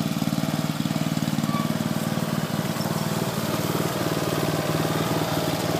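Scotts riding lawn mower's small engine running steadily as the mower drives along, with a fast, even pulse. The engine note drops a little a bit before halfway through.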